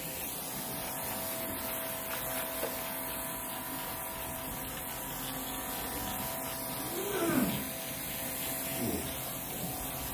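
Cordless electric disinfectant sprayer running, its small pump motor humming steadily with a high hiss of spray.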